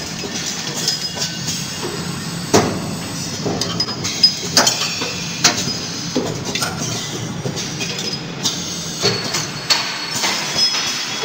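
Automatic CNC lathes running: a steady mechanical rattle with frequent irregular metallic clinks and knocks.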